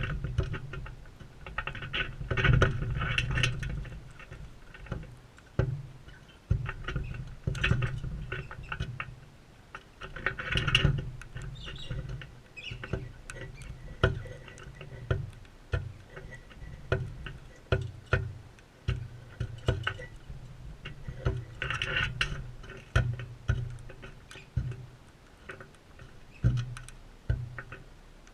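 Irregular taps, clicks and scrabbling close to the microphone, with low knocks: crimson rosellas pecking at seed and moving about on a feeder.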